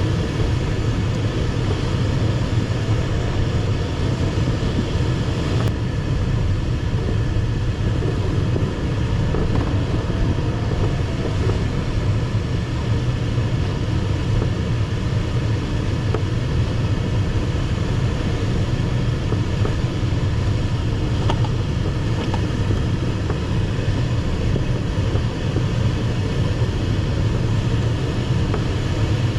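Steady rushing airflow noise of an ASW 15 sailplane in flight, a deep even rumble with no engine or distinct events.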